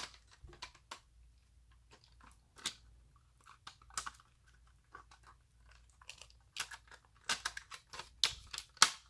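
Plastic clicks and rattles from a Carrera Digital 1:24 Ford GT slot car being handled and reassembled, its body being fitted back onto the chassis. The clicks are scattered at first and come thicker and sharper over the last few seconds.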